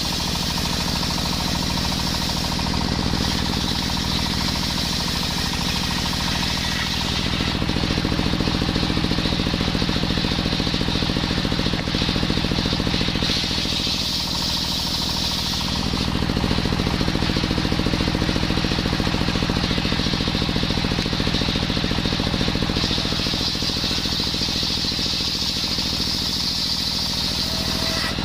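Small two-stroke petrol saw engine running steadily while cutting coconut wood. A high hissing cutting noise comes and goes several times over the engine sound.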